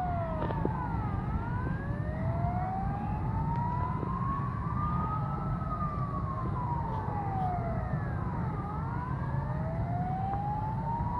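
A siren wailing, its pitch rising slowly for about four seconds and then falling, then rising again near the end. A second, higher gliding tone dips and climbs around the low points. A steady low rumble runs underneath.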